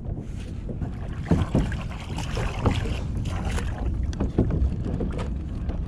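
Wind rumbling on the microphone and water slapping against a kayak hull, with scattered light knocks from fishing gear being handled.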